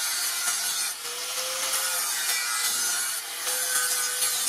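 Handheld angle grinder with an abrasive disc grinding the steel edge of a sword blade cut from a motorcycle brake rotor. A steady, hissing grind runs over a faint motor whine, dipping briefly about a second in and again past the three-second mark.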